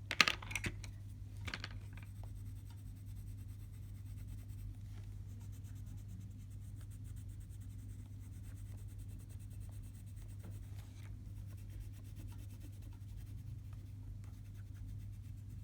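Colored pencil scratching and rubbing on paper in light, continuous shading strokes, over a steady low hum. A sharp click sounds just after the start.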